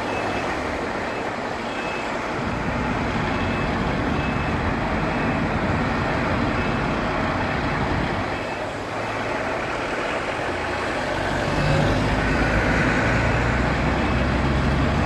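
Diesel engines of parked fire engines running steadily, with cars passing close by on the road; the low rumble grows louder near the end. A short high beep repeats about once a second throughout.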